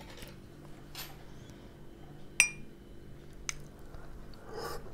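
A metal fork clinks once against a ceramic plate while spearing a fried potato wedge: a single sharp, briefly ringing tick about halfway through, with a few fainter taps around it.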